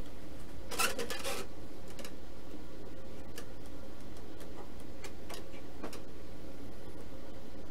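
Hands handling an RC airplane's covered wooden fuselage on a build stand: a short scratchy rustle about a second in, then scattered light taps and clicks, over a steady low hum.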